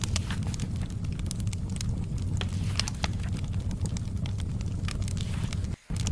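Wood fire in a fireplace crackling over a steady low rumble, with irregular sharp pops and snaps throughout. The sound cuts out for a split second near the end.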